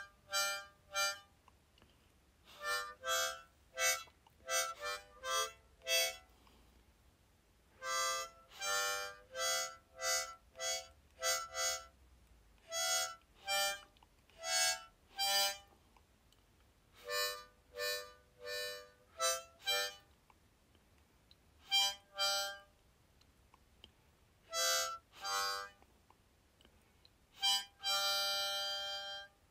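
Background music: a slow melody of short, separate notes in phrases with pauses between them, ending on a long held chord near the end.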